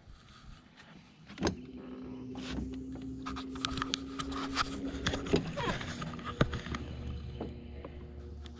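Electric bow-mount trolling motor running with a steady hum that starts about a second and a half in and shifts to a different pitch about five seconds in. A few sharp knocks sound over it.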